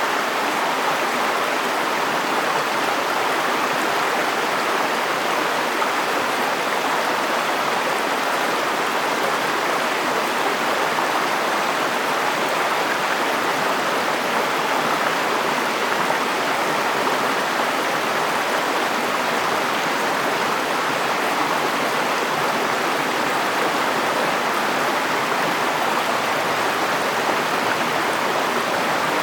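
A river flowing over rocks: steady rushing of moving water, even throughout.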